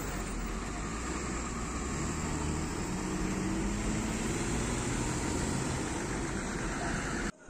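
Steady motor-vehicle rumble of engine and road traffic, with an engine note rising slightly in the middle. It cuts off abruptly just before the end.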